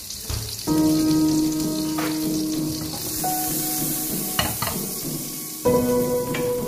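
Butter and oil sizzling in a frying pan over a gas flame, a steady high hiss. Background music of held notes comes in just under a second in and is louder than the sizzle.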